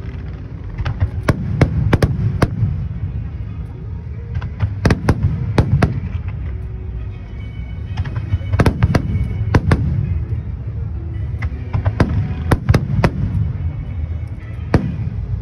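Fireworks display: aerial shells bursting in quick, irregular bangs that come in clusters every few seconds, over a continuous low rumble.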